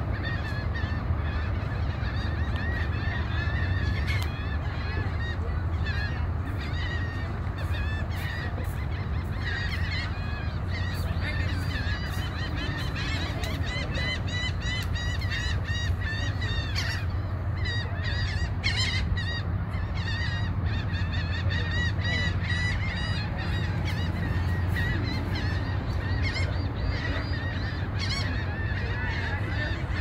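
A large flock of waterbirds calling without a break, many short honking and squawking calls overlapping, over a steady low rumble.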